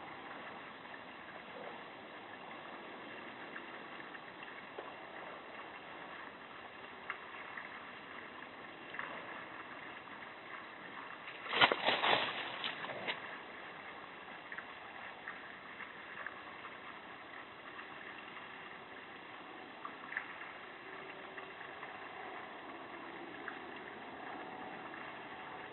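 Steady hiss of an outdoor security camera's microphone, with a brief cluster of loud knocks and rattles about halfway through, as a black bear handles the tree stump by a birdbath.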